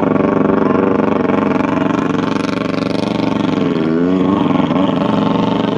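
Racing boat's engine running loud at high revs, its pitch dipping and then climbing back about four seconds in.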